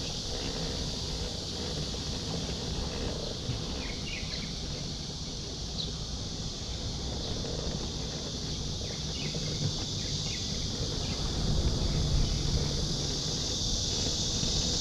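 Steady high-pitched drone of insects in the trees, with a few faint short chirps. Underneath runs a low rumble of wind and road noise from riding along on the scooter.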